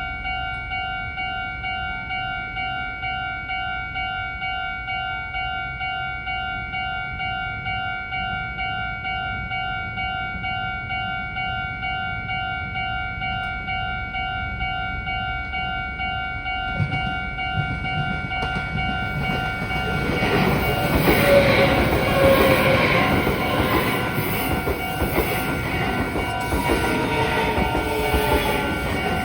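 Japanese level crossing warning bell ringing in a steady, evenly repeating ding. A little over halfway through, a Meitetsu electric train approaches and passes through the crossing, growing loud with rumbling and clattering wheels while the bell keeps ringing.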